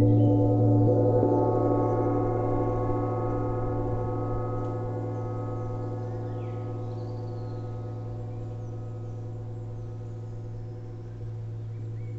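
Large hanging gong played with two soft-headed mallets, ringing with a dense wash of many overtones over a deep hum. It is loudest about a second in, then slowly dies away as it keeps ringing.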